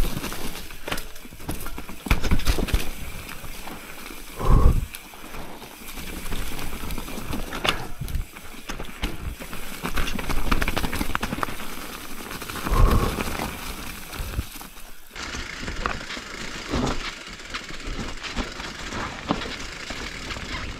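Mountain bike riding fast down a rough forest trail: tyres crunching over dirt, leaves and loose stones, with a constant rattle of the bike over the bumps. Two heavier low thuds come at about four and a half seconds and again near thirteen seconds.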